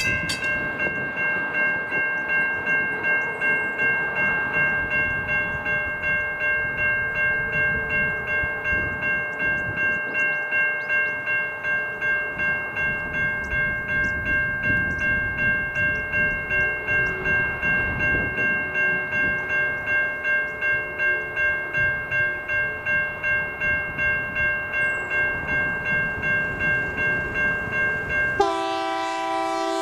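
A Safetran Type 3 electronic level-crossing bell rings steadily at about two to three dings a second, while a mechanical crossing bell's rapid strikes cut off right at the start. Near the end a train's horn sounds.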